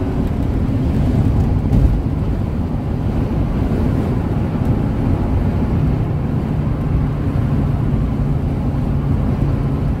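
Steady road and engine rumble inside a moving car's cabin, with wind noise. A low, even hum stands out more clearly from about six seconds in.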